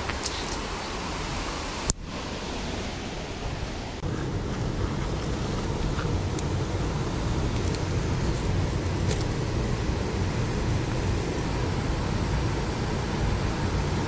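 Steady rushing of a waterfall. There is a sharp click about two seconds in, and the low rumble grows fuller about four seconds in.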